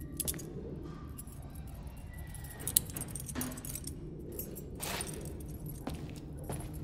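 Metal handcuffs being unlocked with a key and taken off: a scatter of small metallic clicks and jingles over a steady low hum.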